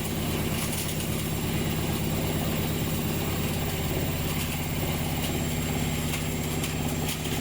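Hotwired washing machine motor running flat out and spinning the drum, a steady low hum with a fast, continuous rattle and scattered sharp clicks from loose objects tumbling inside.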